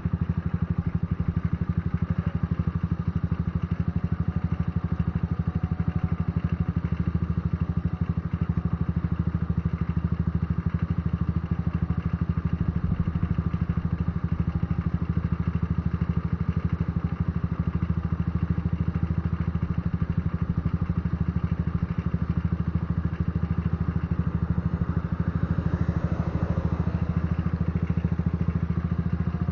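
Patagonia Eagle motorcycle engine running steadily with a deep, rumbling exhaust note.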